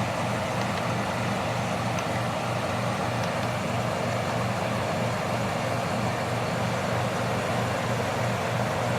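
Sears Coldspot 30-pint dehumidifier running steadily: a constant low compressor hum under the even rush of its fan.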